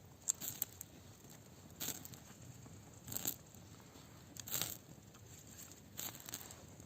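Short tearing, rustling noises about every second and a half, from pulling apart and eating spit-roasted chicken by hand.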